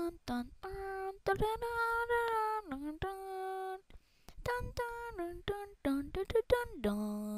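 A high voice, likely a child's, singing a tune in long held notes with short breaks between them and a few downward pitch slides.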